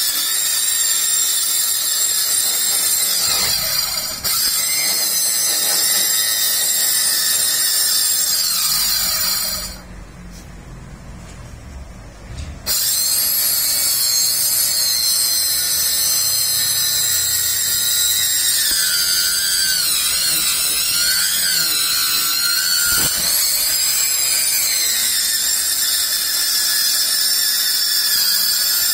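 Small handheld electric saw (marble-cutter type) running at speed and cutting along the edge of a door panel, a steady high-pitched whine. About ten seconds in it drops away for a few seconds, then starts again, and in the second half its pitch sags and wavers as the blade bites into the cut.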